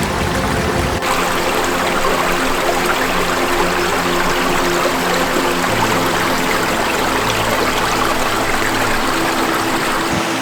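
Creek water cascading over rocks and ice: a steady, even rush of running water.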